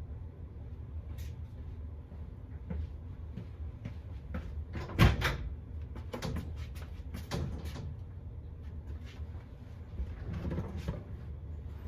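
A 1963 Chevrolet Impala SS's starter giving one loud click about five seconds in, then several fainter clicks and knocks, with the engine not cranking, over a steady low rumble. A click at each turn of the key with a full battery is the sign of the starter pinion jamming on the flywheel teeth, a bad starter.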